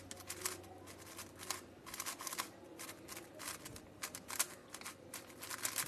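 MoYu Aochuang WRM 5x5 speedcube being turned by hand: irregular quick plastic clicks and scrapes of its layers. The cube is dry, unlubricated straight out of the box.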